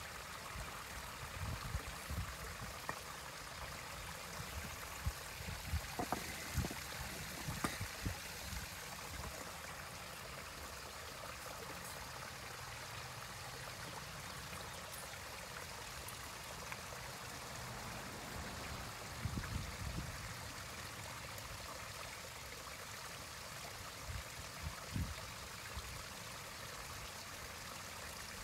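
Hands working in shallow pond water, with irregular small splashes and low knocks, over a steady background hiss.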